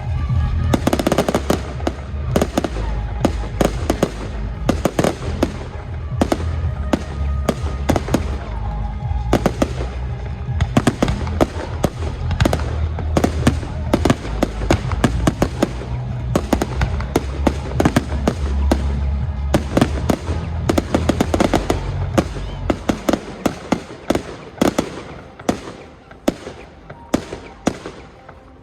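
Fireworks display: rapid, dense bangs and crackles of exploding shells over a deep rumble. The barrage thins out over the last few seconds.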